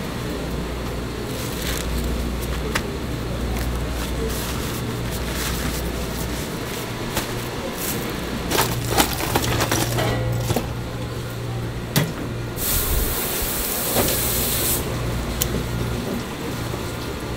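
Food-preparation sounds over a steady low hum: paper towels being handled, scattered clicks and knocks at the cutting board, and a burst of hiss about thirteen seconds in.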